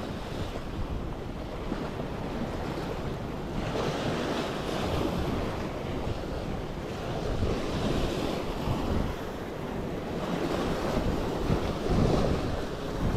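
Small waves washing and foaming at the waterline, with wind buffeting the microphone; the level swells and ebbs with the wash.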